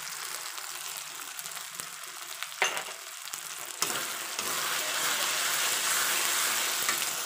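Onion and tomato masala sizzling in oil in a kadai while a metal spatula stirs and scrapes through it. There is one sharp knock about two and a half seconds in. The sizzle grows louder from about four seconds in as the stirring picks up.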